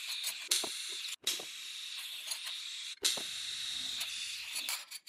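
TIG welding arc hissing and crackling on a machine-pulsed fusion weld of thin stainless steel with no filler. The arc breaks off briefly about a second in and again about three seconds in, then cuts off near the end.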